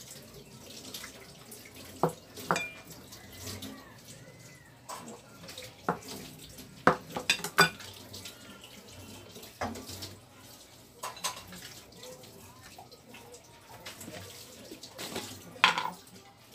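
Dishes handled at a table: a dozen or so separate clinks and knocks as plates are set down on the wooden tabletop and plastic cutting board, the loudest about seven seconds in and near the end.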